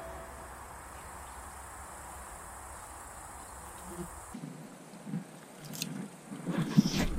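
Faint summer riverside ambience with insects chirping. About four seconds in it changes to close rustling of tall grass and handling of a fly rod, with short scattered noises that grow louder near the end.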